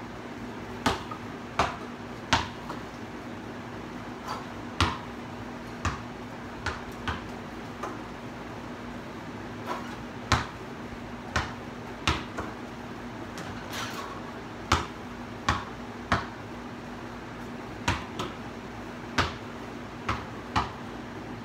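A basketball bouncing on a concrete patio: sharp single thuds at irregular spacing, about one a second, some close together, over a steady low hum.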